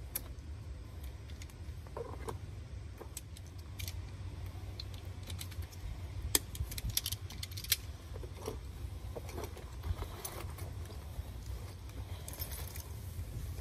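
Small clicks and metallic rattles of hand tools working coax cable: a cable stripper turned on the end of the white coax, then a compression tool squeezing a connector onto it, with the sharpest clicks near the middle. A steady low rumble runs underneath.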